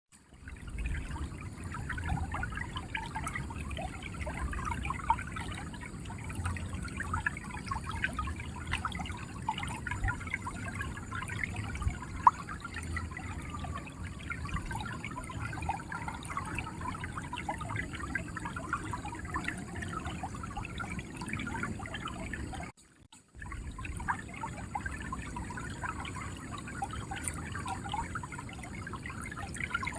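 Clear river water running and gurgling, a steady splashing babble with a low rumble underneath. The sound drops out for a moment about three-quarters of the way through.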